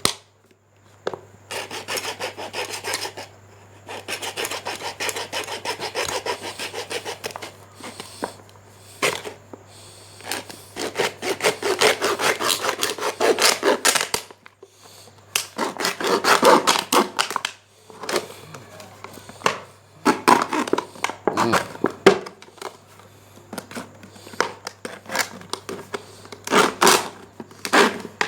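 A hand-held saw blade sawing through a Coca-Cola bottle in quick back-and-forth strokes, in runs of a few seconds broken by short pauses.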